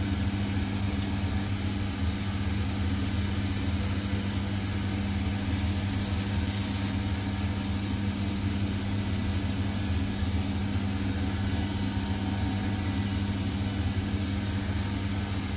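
Shoe finishing machine running with a steady motor hum, its sanding wheel working the edge of a boot's Dainite rubber sole and heel. Several spells of harsher scuffing come and go.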